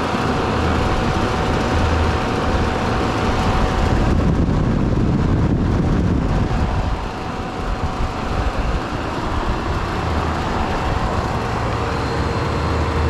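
Several 1980s Carrier "Round One" central air conditioner condensing units running: a loud, steady rush of condenser fan air over a low compressor hum, with a faint steady whine.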